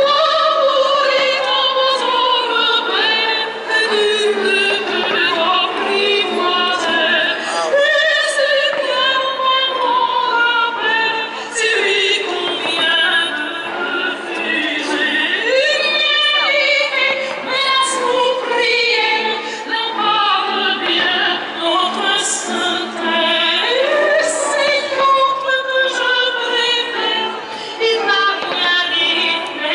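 Operatic singing with musical accompaniment: long, wavering sung notes that slide down in pitch and restart every few seconds. This is the music soundtrack of the fireworks show.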